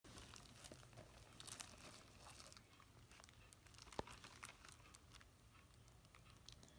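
Faint crinkling and rustling of a plastic-wrapped DVD case being handled, busiest in the first couple of seconds, with one sharp click about four seconds in.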